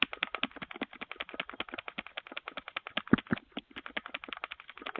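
Doorbell button pressed over and over in quick succession, heard through the doorbell camera's microphone as a fast run of sharp clicks, about nine a second.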